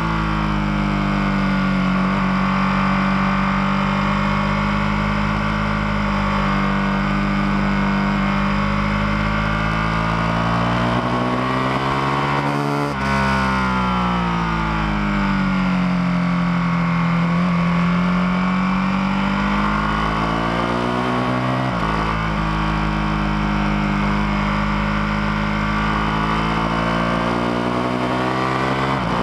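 Ducati 1299 Panigale S's L-twin engine under way at speed, its note rising and falling with the throttle, with abrupt breaks in the note about halfway through and again later, over steady wind rush.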